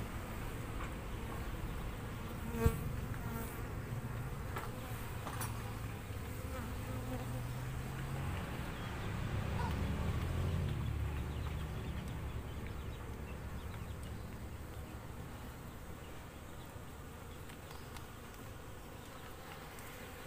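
Buzzing of an Asian honeybee (Apis cerana) colony disturbed by an opened hive during a honeycomb harvest, a steady hum that swells a little midway and then eases. A single sharp knock near three seconds in.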